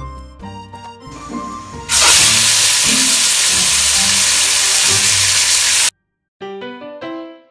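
Chicken drumsticks sizzling loudly in browned sugar in a pot on high heat, an even hiss lasting about four seconds before cutting off suddenly. The sizzle shows the pot is hot enough to colour the chicken. Light background music plays before the sizzle and again near the end.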